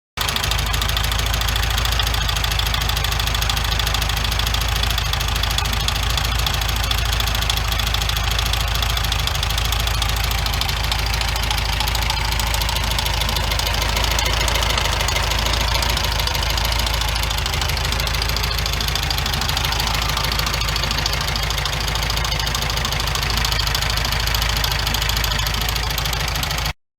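1974 VW Beetle's air-cooled flat-four engine running steadily with a loud knocking noise, a knock whose cause is not yet known. The sound cuts off abruptly near the end.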